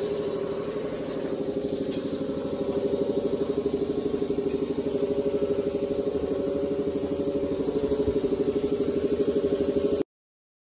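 A motor running steadily with a fast, even pulse, cutting off abruptly near the end.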